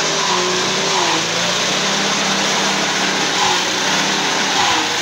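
Forage chopper powered by a small petrol engine, running steadily while green stalks are fed through its blades. The engine's pitch dips briefly several times as the stalks load it.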